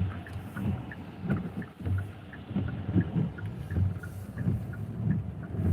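Car cabin noise while driving: a low, uneven rumble of engine and tyres on the road. Faint, evenly spaced ticks sound about three times a second.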